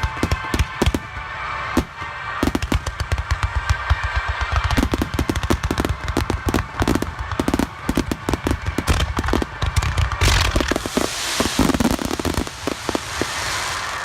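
Fireworks going off at close range: rapid volleys of sharp bangs and deep booms, giving way in the last few seconds to a dense hissing crackle.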